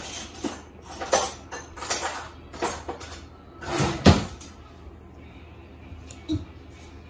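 A handful of short, sharp knocks and clatters, about one every second. The loudest is a heavier pair about four seconds in, then it goes quieter.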